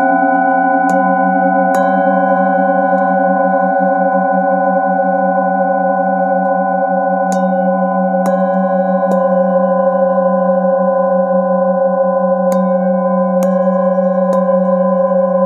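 Singing bowls ringing together in a steady, layered drone of sustained tones, the lowest ones wavering in a slow beat. About seven light mallet strikes on the bowl rims, in clusters about a second apart, renew the ringing.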